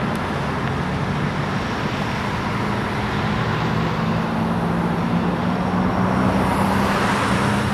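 Road traffic: cars driving past and over the railroad grade crossing, over a steady low engine hum. One passing car grows louder near the end.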